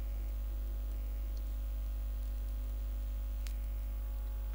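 A steady low hum with faint hiss beneath it, and a single faint click about three and a half seconds in.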